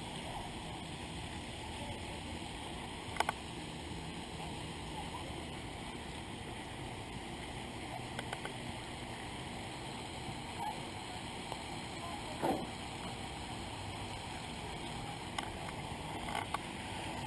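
Steady wind rumble on the microphone, with a few short clicks as a small bluegill is handled and unhooked.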